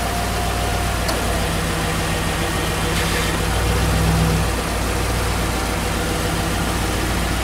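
Ford F-250 pickup's engine idling steadily, a low hum that swells slightly about four seconds in.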